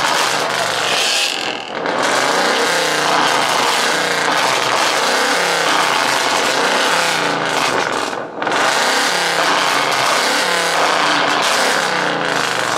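Ford Mustang engine revved hard over and over while stationary, the pitch sweeping up and down repeatedly, with two brief dips about two seconds and eight seconds in.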